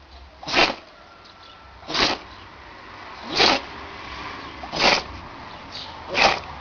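An animal sneezing five times in a row, short sharp sneezes evenly spaced about a second and a half apart.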